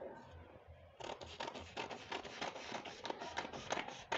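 Dressmaking scissors snipping through sheets of pattern paper: a steady series of short cuts, several a second, starting about a second in.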